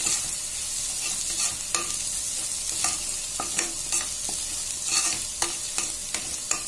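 Chopped onions frying in oil in a steel pan, with a steady sizzle, while a metal spoon stirs the spice masala through them, scraping against the pan in irregular strokes about one or two a second.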